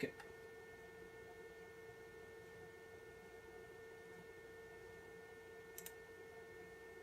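Faint steady electrical whine from a cheap PC power supply, several fixed pitches held without change. A quick double click comes near the end.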